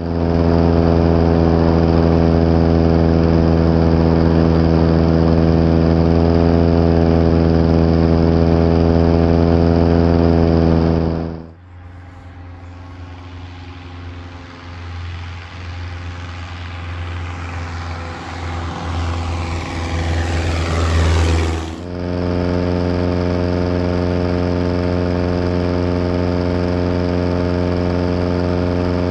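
Zenith STOL CH801's engine and Hartzell constant-speed propeller running steadily at cruise power in flight, heard close up from a float-mounted camera. For about ten seconds in the middle the plane is heard from the ground as it flies toward the field, quieter at first and growing louder, its tones sliding downward, before the close, steady in-flight drone returns.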